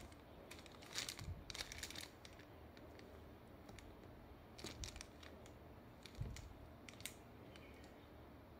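Faint handling noise from a leather Birkin-style handbag turned over in the hands. Scattered rustles and crinkles from the clear plastic film on its handles, in a cluster about a second in and again near the middle, with a couple of short clicks after.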